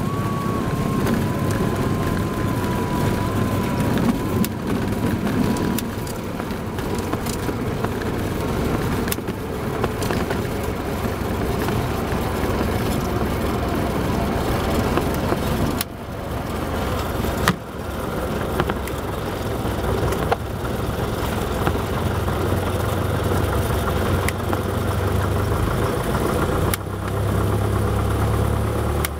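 Cessna 172's piston engine and propeller droning steadily inside the cockpit, with a faint whistling tone that slides slightly down in pitch over the first few seconds. There is one sharp knock a little past halfway, and the low engine note grows stronger in the last few seconds.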